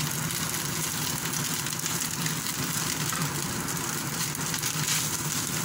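Shredded chicken sizzling as it is stir-fried in a stainless steel frying pan, stirred with a silicone spatula: a steady frying hiss with fine crackling.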